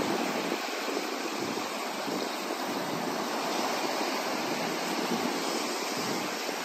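Small waves washing up onto a sandy beach: a steady, even hiss of surf.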